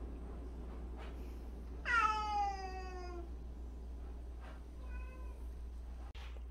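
A house cat meows: one long meow falling in pitch about two seconds in, then a short, fainter meow about five seconds in.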